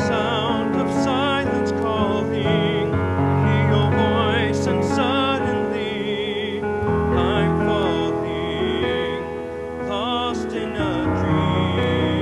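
Music: a song with a solo voice holding long notes with vibrato over keyboard and bass accompaniment.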